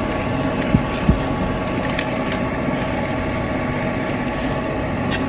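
Steady hum of a car running, heard from inside the cabin, with two light knocks about a second in.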